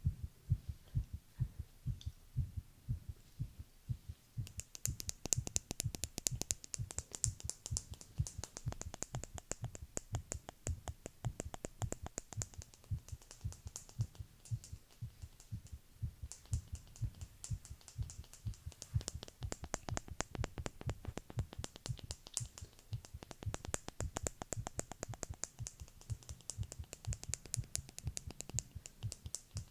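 A heartbeat recorded close up: a run of dull low thumps, with a fine crackling of light clicks over it from about four seconds in.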